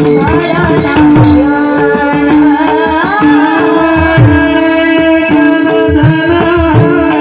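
Devotional kirtan music: a woman singing a wavering melodic line over steady held drone notes and a hand drum whose low strokes bend down in pitch.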